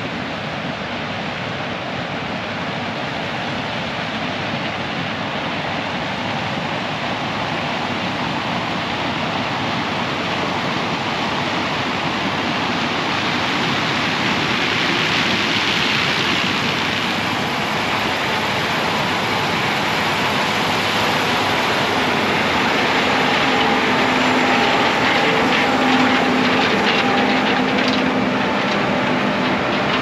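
A John Deere S680 combine harvesting corn, with a John Deere 8310R tractor running alongside, makes a steady rushing machinery noise that grows louder as they come closer. Engine hum rises out of it in the last third.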